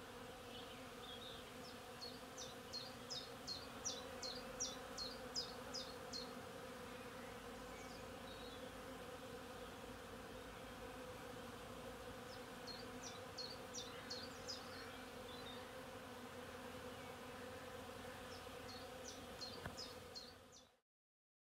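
Many honeybees buzzing as they forage on tree blossom: a steady, low, even hum. Runs of quick, high chirps come over it three times, a few seconds each.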